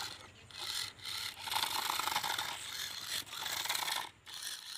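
Toy rock-crawler RC car's small electric motors and gearboxes running in several bursts, with a rasping scrape as its tyres grind against concrete, and short breaks between bursts.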